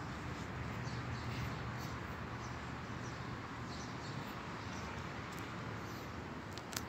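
Steady background noise with a low hum and faint, scattered short high chirps, then a single sharp click near the end.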